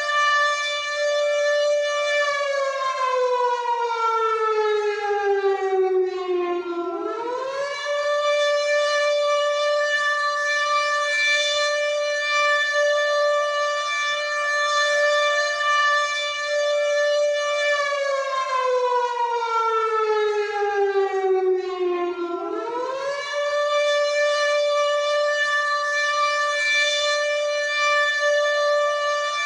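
WW2-style air raid siren sounding a loud, steady high note that twice slides slowly down in pitch over about four seconds, then swoops quickly back up to the held note. The first fall starts a couple of seconds in, the second a little past the middle.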